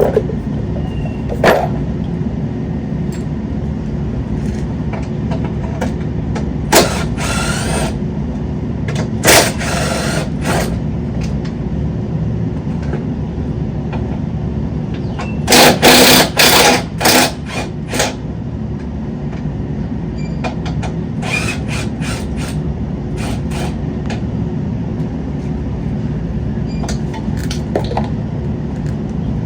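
Tools at work unbolting a car's front-end parts: a few short, loud bursts of tool noise, with a run of them about halfway through, over a steady low rumble.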